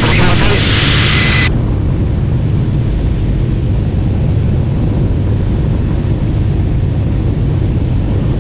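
The Rolls-Royce Merlin V12 of a two-seat Hawker Hurricane running steadily in cruising flight, heard from inside the cockpit as a loud, even low drone. A higher band of hiss stops about a second and a half in.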